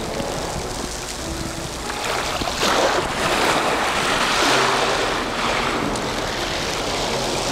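Sea waves washing onto the shore, swelling and easing, with wind on the microphone.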